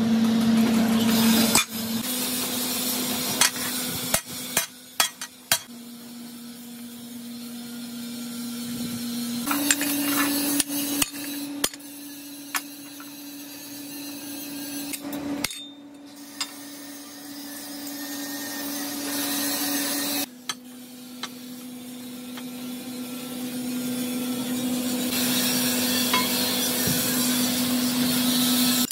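Hand hammer tapping on steel plate in scattered strikes, some in quick clusters, as a curved steel band is worked onto a flat plate. A steady hum runs underneath and shifts in pitch a few times.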